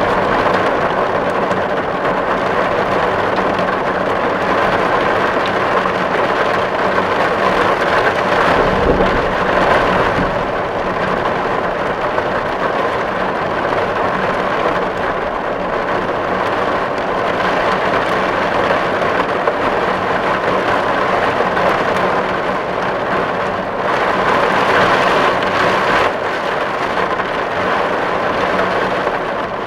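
Steady heavy rain falling on a tin roof: a dense, even patter on the metal. There is a brief low rumble about nine seconds in, and the rain grows louder for a couple of seconds around twenty-four seconds in.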